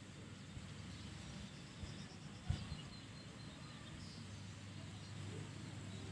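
Quiet ambience with a low steady hum, faint bird chirps, and one soft knock about two and a half seconds in.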